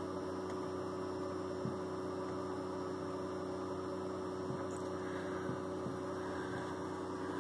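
A 1930s Zenith vacuum-tube farm radio humming steadily with a faint hiss, just after being switched on: the tubes are warming up and no station has come in yet.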